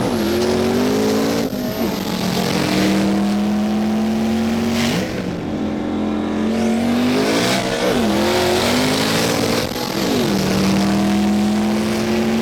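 Twin-turbo Ford Mustang's Coyote 5.0 V8 at full throttle, its pitch climbing steadily through each gear and dropping back at each upshift, about every two and a half seconds.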